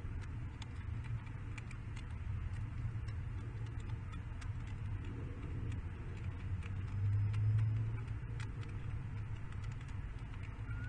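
Light, irregular clicks of nest-box gravel as a peregrine falcon pecks at and shifts on the pebbles, swallowing small stones as gastroliths. A steady low rumble runs underneath and swells briefly about seven seconds in.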